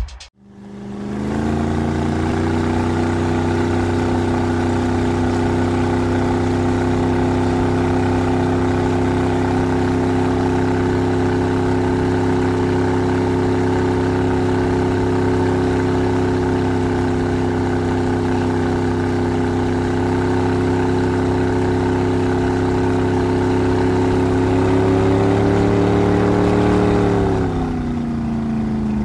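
A small engine running steadily at constant speed. It comes up quickly at the start, rises a little in pitch near the end, then slows with a falling pitch in the last couple of seconds.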